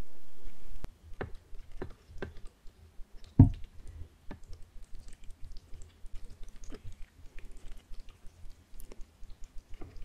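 Close-miked eating of spicy noodles and enoki mushrooms: chewing with a fast run of small wet mouth clicks, and a few louder knocks in the first few seconds, the loudest about three and a half seconds in. A steady hiss cuts off abruptly about a second in.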